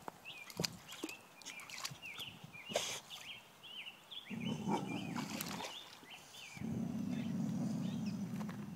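Boxer dog growling low, in two stretches: a short one about halfway through and a longer one of about two seconds near the end.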